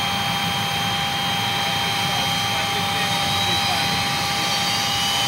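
Learjet 45's turbine running with a steady high whine made of several fixed tones over a rushing noise. A fainter, higher whine climbs slowly in pitch in the later seconds, as a turbine spools up during start-up.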